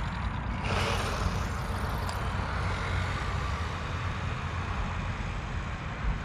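Haiboxing 2995 1/12 desert truck making a speed pass: its brushed 490 electric motor whines faintly and its tyres run over dirt, under a steady low rumble, with a brief louder surge about a second in.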